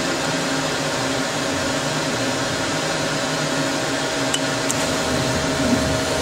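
Doosan DNM-400 CNC vertical machining center running: a steady whirring hum with a constant mid-pitched tone.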